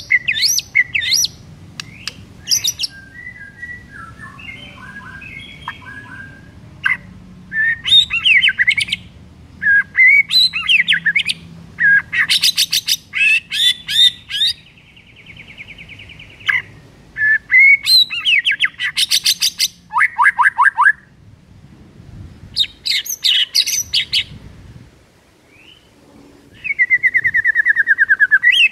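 White-rumped shama (murai batu) singing loudly in bursts of varied phrases: fast trills, sharp whistles and buzzy rattles, separated by short pauses.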